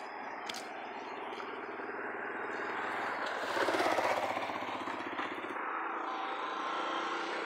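Small motorcycle engine passing close by, loudest about three and a half to four and a half seconds in, over a steady rushing background.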